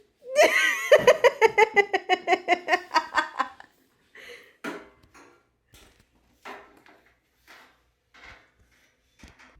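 A person laughing hard: a rapid run of voiced 'ha' pulses, about six a second, sliding down in pitch over about three seconds, followed by short, fainter breathy bursts.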